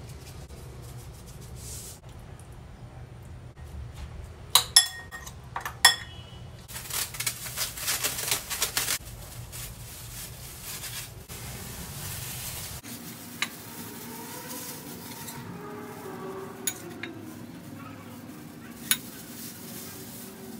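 A metal spoon clinking sharply against a ceramic bowl a few times, then stirring and scraping through a chopped tomato-and-onion filling for a couple of seconds. Quieter handling follows, with a few isolated clicks.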